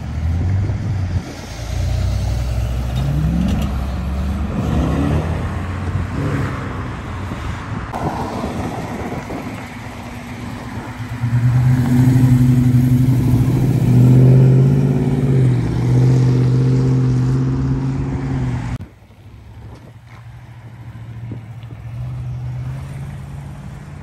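Cars pulling away one after another: a C5 Corvette's V8 revs up in rising sweeps as it accelerates away, then a red early-1970s Plymouth Barracuda rumbles loudly past, the loudest part. Near the end the sound drops suddenly to quieter distant traffic and wind.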